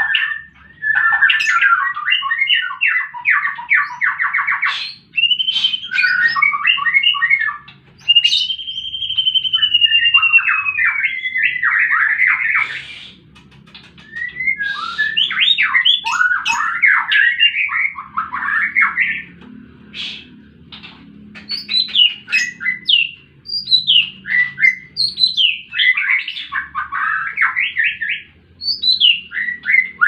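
White-rumped shama singing its varied, loud fighting-mood song: fast trills and rattles, a long whistle that rises and falls about eight seconds in, and runs of short falling notes, with brief pauses between phrases.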